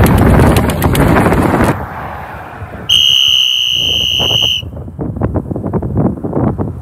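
Wind buffeting the microphone, then about three seconds in a single long, steady, high-pitched whistle lasting under two seconds, followed by choppy gusts of wind noise.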